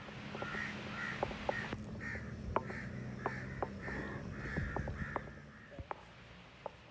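A bird calling over and over, a quick string of short calls lasting about five seconds, with sharp clicks scattered among them.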